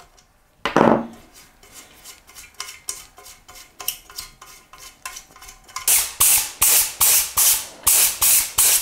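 Small metal clinks and clicks of steel bolts and a hand ratchet on a workbench, with one louder knock about a second in. From about six seconds in, a spray gun hisses in short bursts, roughly two a second.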